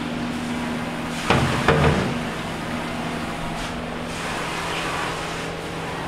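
Metal pans clanking against a stainless-steel sink twice, about a second and a half in, over a steady low hum.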